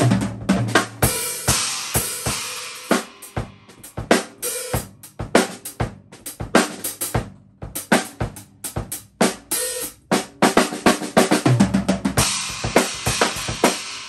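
Acoustic drum kit being played: a fast beat of snare, bass drum and hi-hat strikes, with cymbal crashes ringing out about a second in and again near the end.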